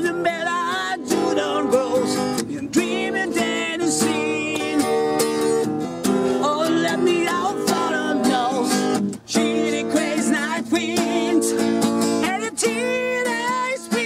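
Acoustic guitar strummed and picked in an improvised piece, with a wordless voice singing along in places. There is a brief break about nine seconds in.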